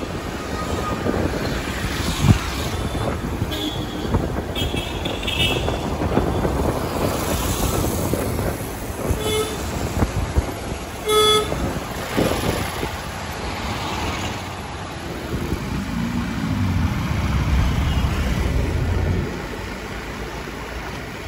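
Road traffic noise with vehicle horns honking: two short honks a couple of seconds apart about halfway through, the second louder.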